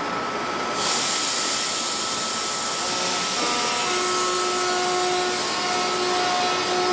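Sorefame-built CPTM 5500 series electric train pulling out and rolling past at close range, with a steady rushing noise. The hiss rises suddenly about a second in, and from about three seconds in steady whining tones at several pitches join it.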